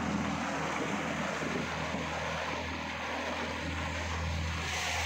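Boat motor running steadily, a low continuous hum, with water and wind rushing past the moving boat.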